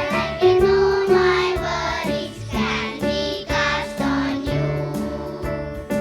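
Prayer song sung by children's voices over instrumental accompaniment with a steady beat.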